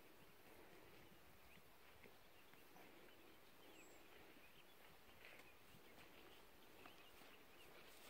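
Near silence: faint outdoor ambience with a few faint, short, high chirps or ticks scattered through it.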